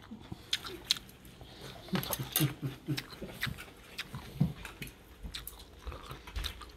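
Eating at a table: chewing and biting, scattered sharp clicks of chopsticks, cutlery and plates, and a few brief murmurs in the middle.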